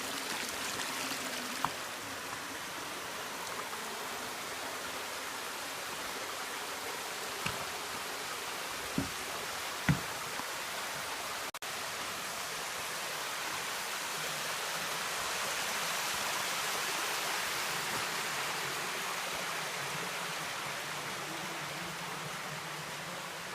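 Steady rush of a mountain waterfall cascade, swelling slightly in the second half, with a few short faint knocks, the loudest about ten seconds in.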